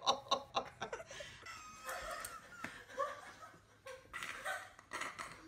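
A person chuckling and laughing in short bursts.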